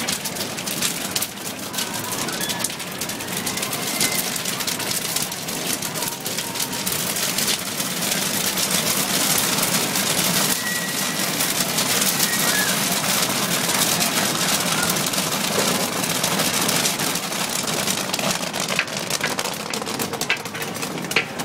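Kettle corn popping in a large open kettle: a dense crackle of kernels bursting in hot oil and sugar, thickest and loudest through the middle.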